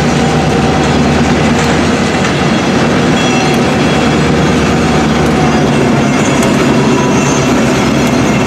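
EMD SW1001 switcher locomotive running steadily on its two-stroke V8 645 diesel as it moves a boxcar along street track. The wheels run on the rails, and faint high wheel squeal sets in about three seconds in.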